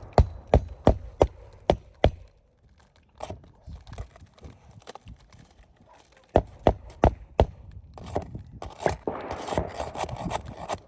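Hammer driving roofing nails through a shingle, sharp strikes about three a second. The strikes stop after about two seconds and start again near the middle.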